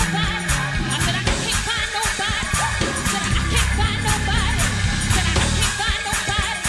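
A church praise team singing together over a live band, with steady bass notes and a drum beat under the voices.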